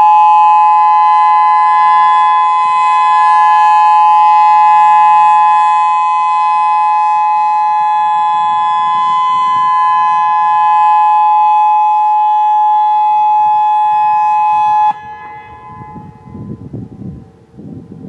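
Federal Signal EOWS 612 electronic warning siren sounding its Alert signal, a loud steady tone that holds one pitch and then cuts off abruptly about fifteen seconds in. Fainter steady tones and a low rumble remain after it stops.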